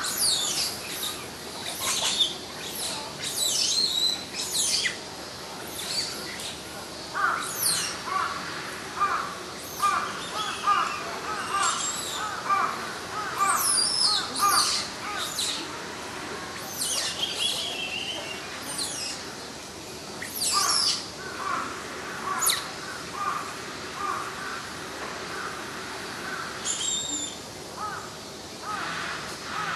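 Birds calling, with many sharp, high calls that sweep steeply downward and, in the middle, a run of shorter, lower repeated notes.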